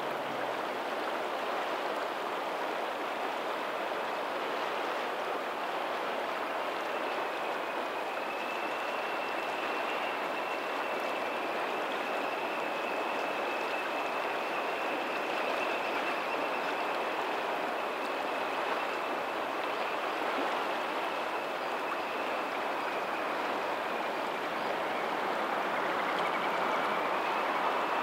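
Lagoon tidal outflow running over a pebbly shore: a steady, unbroken rush of flowing water. A faint thin high tone sits on top of it through most of the middle.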